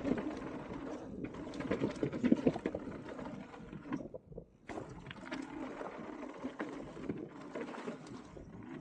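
Mountain bike rolling down a dirt trail: tyres on the ground and the bike rattling and clattering over bumps, with a brief quiet gap about four seconds in.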